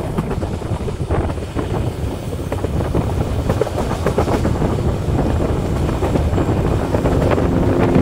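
Indian Railways passenger train running on the track, heard from an open coach door: a steady low rumble and clatter of wheels on rails, with wind buffeting the microphone.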